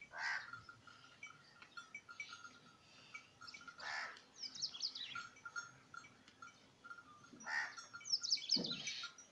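Birds calling: a small bird chirps over and over. A few louder, harsher calls come about a second, four seconds and seven and a half seconds in, with quick falling twitters between them. A brief lower call sounds near the end.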